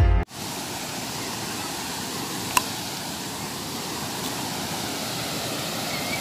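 Steady rushing of a small waterfall spilling over rocks into a pool, with one sharp click about two and a half seconds in.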